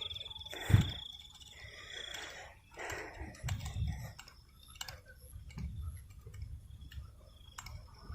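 A steady high insect trill fades out about two seconds in. Around it are scattered faint clicks and soft low thumps, the loudest a sharp knock under a second in.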